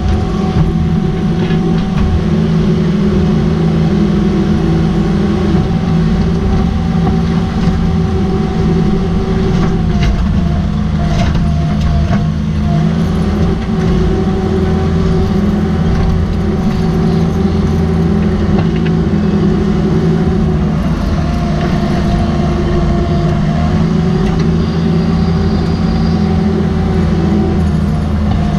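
Cat 305.5E mini excavator's diesel engine running steadily while it digs, heard from the operator's seat, its note shifting a little as the hydraulics take load. There are a few scattered knocks from the bucket working in rocky soil.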